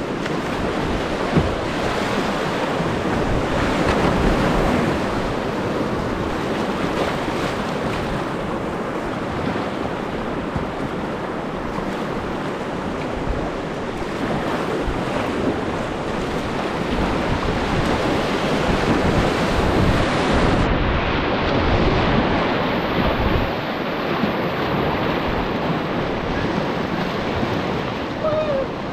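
Creek whitewater rushing and churning around a kayak, with occasional paddle splashes and wind on the microphone.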